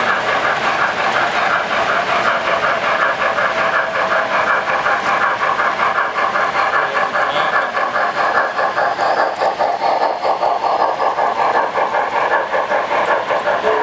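O gauge model steam locomotive and freight cars running past on three-rail track: a loud, steady, rapid clatter of metal wheels rolling over the track.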